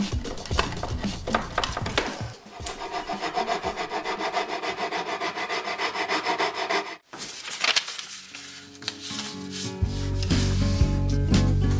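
A chisel paring thin shavings from the curved end grain of birch and mahogany cutting boards, scraping unevenly. Then a hand file is stroked quickly and evenly along the mahogany board's edge, shaping it. Background music with a steady beat comes in near the end.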